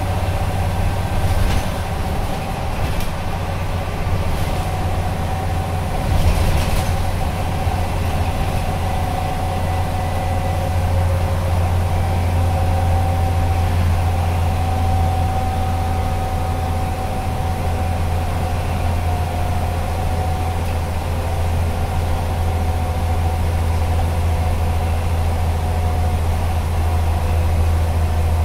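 Scania CN94UB OmniCity bus's diesel engine running steadily under way, heard from inside the passenger saloon: a strong low drone with a fainter higher whine above it. A couple of brief knocks or rattles come about one and a half and six seconds in.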